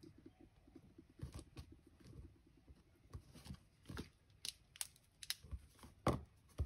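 Scattered light clicks and taps of stamping tools being handled on a craft desk: a clear acrylic stamp block picked up and a stamp fitted to it, with a firmer knock about six seconds in.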